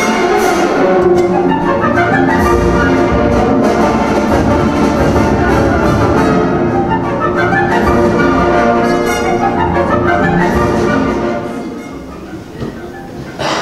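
Orchestral music with brass, playing repeated rising runs, then fading down about eleven seconds in.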